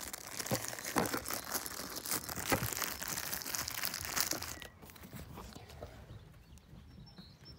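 A plastic bag of raw meat crinkling and crackling as it is handled, with many sharp crackles. The crinkling stops a little past halfway, leaving only faint background.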